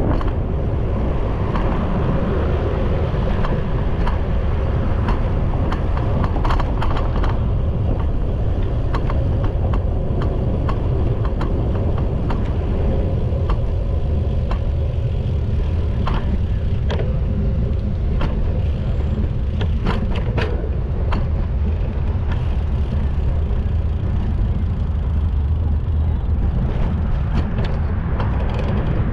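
Wind buffeting the camera microphone on a moving bicycle, a steady low rumble, with city traffic going by and scattered sharp clicks.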